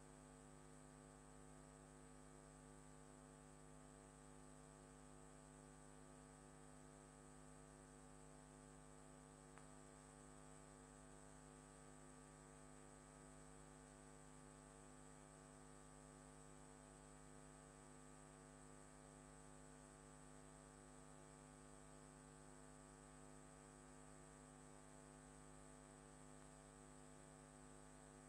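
Near silence: a faint, steady electrical hum with many overtones, and a single faint tick about ten seconds in.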